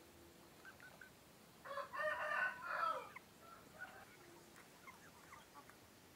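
A young rooster of an egg-laying breed crowing once, a short crow of about a second and a half starting about a second and a half in, with faint clucks and chirps around it.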